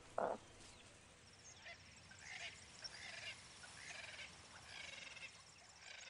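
Faint wild-animal ambience: one short animal call just after the start, then scattered faint high chirps over a thin, steady high trill.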